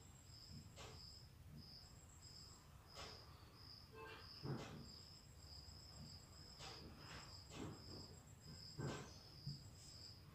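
Near silence with a cricket chirping faintly and evenly, about two chirps a second, and a few soft knocks.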